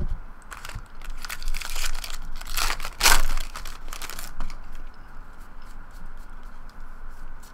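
A foil trading-card pack crinkling as it is torn open by hand, loudest about three seconds in. After that come softer scattered clicks of the cards being thumbed through.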